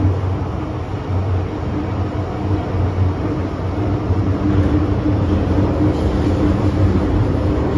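Interior of an MTR Island Line M-Train, a Metro-Cammell electric multiple unit, running at steady speed through a tunnel. The car gives a continuous rumble of wheels on rail, with a steady hum running through it.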